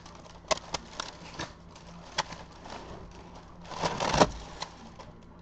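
Tissue paper rustling and crinkling as it is handled in a cardboard shoebox, with a few sharp crackles and a longer, louder rustle about four seconds in.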